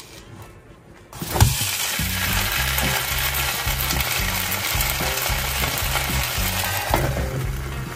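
A potato omelette frying in a nonstick pan, sizzling steadily. The sizzle starts abruptly with a sharp click about a second in. Background music with a bass line plays underneath.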